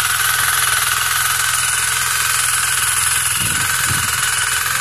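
Walk-behind power weeder's small engine running steadily under load as its rotor tills the soil, with a steady high whine on top.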